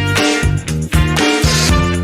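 Background music: an upbeat swing-style track with a steady beat.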